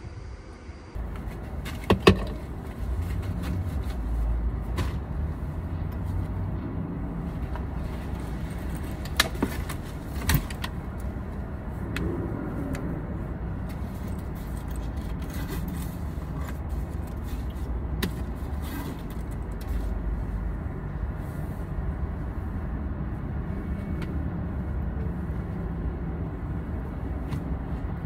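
Steady low rumble of a car, with a sharp knock about two seconds in and a few clicks and knocks near the middle.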